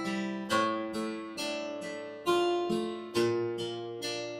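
Background music: acoustic guitar chords strummed one after another, each ringing out and fading before the next.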